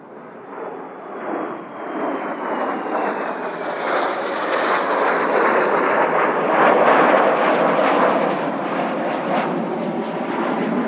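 Kawasaki T-4 jet trainers flying past: the turbofan noise swells to its loudest about seven seconds in, and a high whine falls in pitch near the start as they pass.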